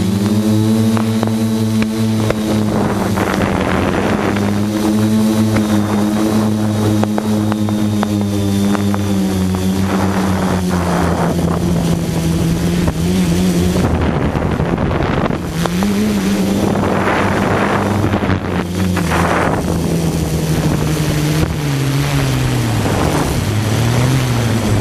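Camera drone's motors and propellers humming steadily, the pitch drifting up and down as the throttle changes, with several short rushes of noise over the top.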